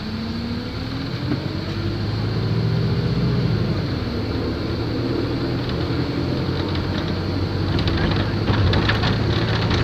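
Wright StreetLite single-deck bus pulling away and accelerating, its engine note rising, dropping at a gear change about four seconds in, then rising again. Rattling and clicking come in during the last few seconds.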